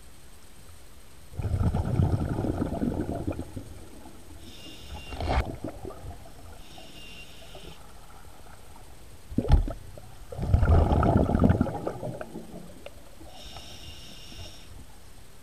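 A scuba diver breathing through a regulator underwater: two rushes of exhaled bubbles about two seconds long, with the inhalations between them heard as a thin whistling hiss, and a single sharp knock just before the second exhalation.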